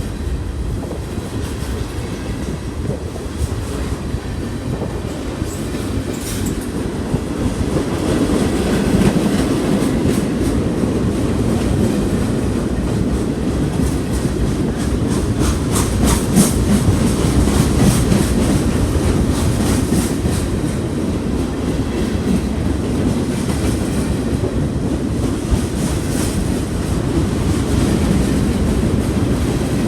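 Train rolling past: a steady rumble with the wheels clicking over the rail joints.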